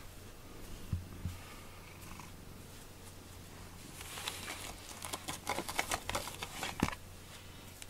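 Domestic cat purring steadily while being stroked, with a run of scratchy rustling about halfway through as it noses at a cardboard scratching board.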